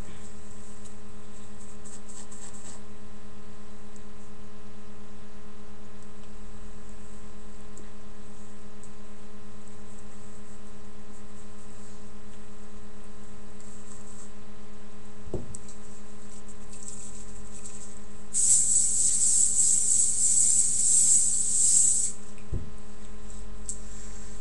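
Steady electrical hum with a buzzy, many-toned pitch. About two-thirds of the way in, a hiss lasts some three and a half seconds, with a soft knock a few seconds before it and another just after it ends.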